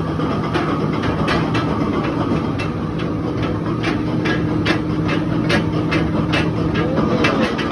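Excavator diesel engine running steadily under hydraulic load, with irregular sharp cracks and knocks, several a second, of coal being broken up by a crusher bucket.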